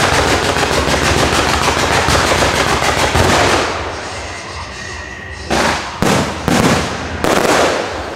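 Aerial fireworks display. A dense, rapid volley of shots and crackles runs for the first three and a half seconds, and then four loud separate bangs of shells bursting, each trailing off, begin about five and a half seconds in.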